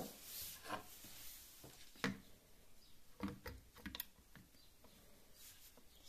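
Handling noises of an espresso portafilter: a few sharp clicks and knocks with light rubbing as it is picked up and fitted into the grinder's portafilter holder.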